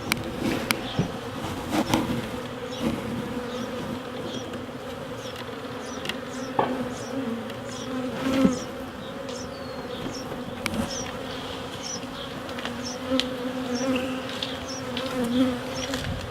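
A swarm of honeybees buzzing steadily around an open hive, many wings making a low hum. A few sharp knocks of wooden hive boxes being handled break through the buzz.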